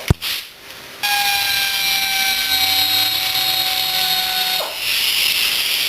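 A power tool starts about a second in and runs steadily: a hiss with a whine that slowly falls in pitch, the whine dropping away near the end while the hiss goes on.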